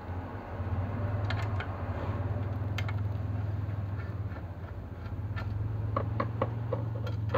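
Small metallic clicks and taps from a screwdriver and the sheet-metal chassis of a car DVD head unit being handled, a few early on and a quick cluster near the end, over a steady low hum in the background.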